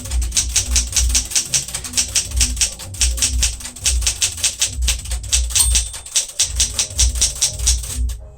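1975 Smith-Corona Galaxie Twelve manual typewriter being typed on steadily: rapid key and typebar strikes at about five or six a second, with a brief pause a little past the middle.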